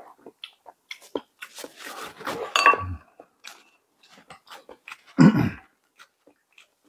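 Close-miked eating sounds: chewing and wet mouth clicks as a person eats, with a noisier stretch of chewing a second or two in and one brief, louder mouth sound about five seconds in.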